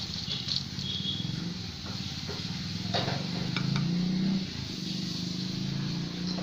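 A low mechanical hum that rises slightly in pitch about four seconds in, with scattered light clicks and taps.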